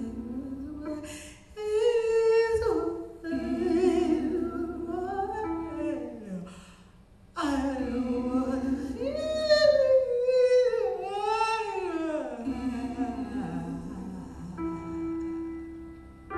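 A woman's wordless singing into a microphone: long held notes with vibrato that slide up and down in pitch, breaking off about seven seconds in before a louder phrase. A steady electronic keyboard tone comes in near the end.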